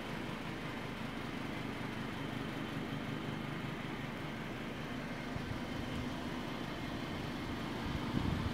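Steady whir of a running liquid-cooled desktop PC's cooling fans, a constant low hum with no change in speed. A brief low thump comes near the end.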